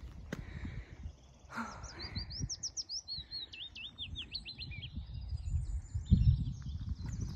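A songbird sings a quick phrase of rapidly rising and falling high notes for about two seconds, starting a couple of seconds in, with fainter high notes after. Underneath are footsteps on a gravel path, with a heavier thud about six seconds in.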